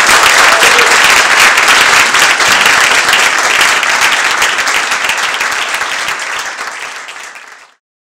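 Audience applauding, dense and loud, thinning over the last few seconds and then cut off suddenly.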